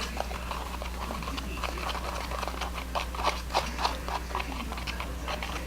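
A spoon stirring and scraping a thick mix of dish soap and baking soda in a container: irregular short clicks and scrapes with soft squishing, several a second.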